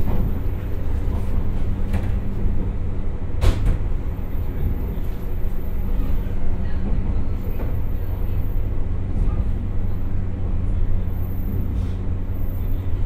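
Interior running noise of a JR 107 series electric train (MT54 traction motors, 15:84 gearing), heard from a seat in the lead car as it slows toward its stop. A steady low rumble of wheels and running gear with a constant hum, and a sharp click about three and a half seconds in.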